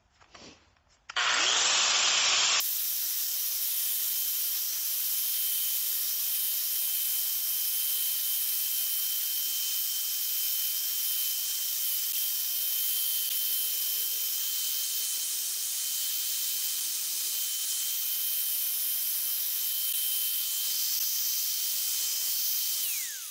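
Angle grinder grinding the rusty steel tube of a Dana 60 axle, cleaning it to bare metal ready for tack welding. After a couple of short bursts it runs steadily with a constant high whine, then winds down with a falling pitch near the end.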